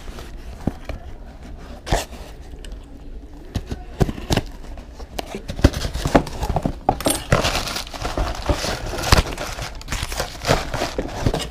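Cardboard shipping box handled, turned over and knocked against a bench top in a string of sharp knocks. From about seven seconds in comes a stretch of crinkling and tearing as the box and its packaging are opened.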